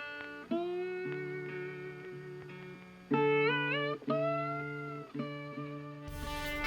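Background music: separate notes that start suddenly and slide in pitch, then a louder, fuller section of music begins near the end.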